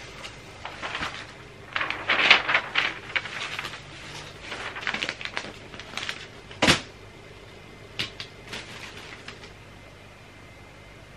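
Wrapping paper rustling and crinkling in uneven bursts as a roll is pulled open and handled, with one sharp crackle about two-thirds of the way in and only faint rustles after.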